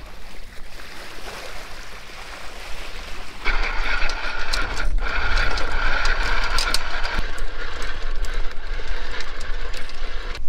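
Electric anchor windlass hauling in the anchor chain: a steady motor whine with the clicking of chain links, starting about three seconds in. The whine drops away past the middle while the clicking goes on.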